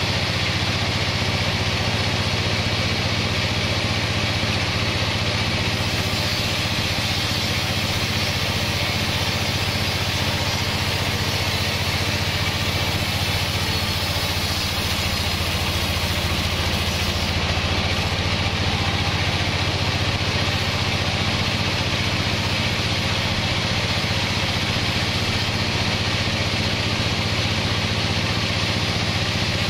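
Large vertical band sawmill running steadily: a constant machine drone with a strong low hum and a hiss above it.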